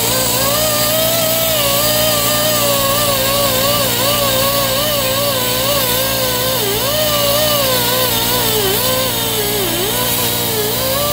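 High-speed handheld rotary tool with an abrasive surface-conditioning disc grinding a metal mating surface on an engine: a continuous whine over a hiss, its pitch dipping and recovering as the disc is pressed into the metal.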